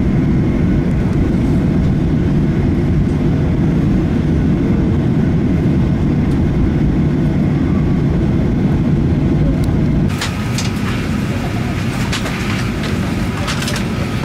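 Jet airliner taxiing after landing: a loud, steady low rumble of engines and cabin noise. About ten seconds in, it drops and gives way to cabin clatter, with sharp clicks and knocks from overhead bins and luggage as passengers stand to get off.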